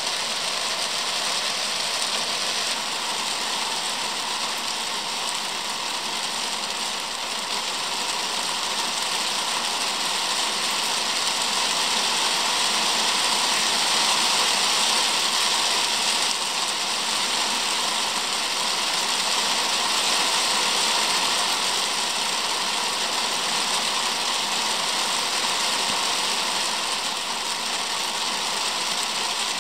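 Steady rain falling on a wet timber deck, an even hiss of drops.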